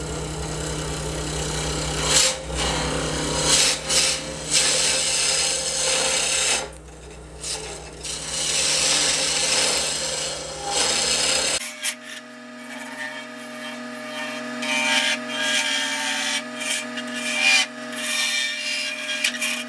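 A turning tool cutting a spinning epoxy-and-wood duck call blank on a wood lathe: a loud scraping, rasping cut that swells and fades as the tool is pushed in and eased off, over the steady hum of the lathe. About halfway through, the sound changes abruptly and the hum under it shifts.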